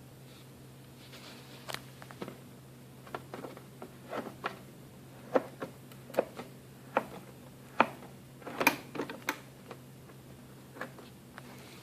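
A series of irregular sharp clicks and knocks, about a dozen spread over several seconds and loudest in the middle, over a low steady hum.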